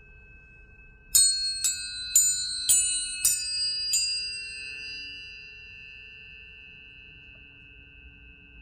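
Planetary tuning forks struck six times in quick succession, about half a second apart. Each strike gives a bright metallic ping that fades quickly, while the forks' steady pure tones ring on and slowly die away.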